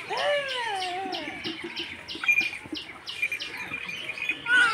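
Hand-milking a water buffalo: milk squirting from the teat into a plastic bucket in short hissing strokes, about four a second. A high, falling call sounds at the start, and a bird chirps in the background.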